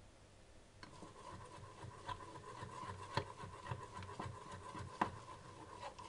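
A metal spoon scrapes and clinks around a small steel pan of sugar melting for caramel, with two sharper clinks about three and five seconds in. A faint steady hum runs underneath from about a second in.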